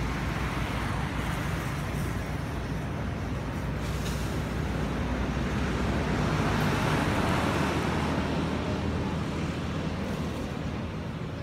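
Road traffic passing: a steady rush of tyre and engine noise that swells to its loudest about two-thirds of the way through, then eases.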